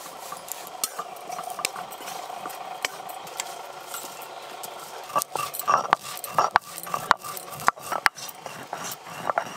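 Kitchen work sounds: gram flour is tipped into a dry aluminium wok and stirred with a spatula, and roasted whole spices are ground on a stone slab (sil) with a stone roller. From about five seconds in there is a run of scrapes and knocks.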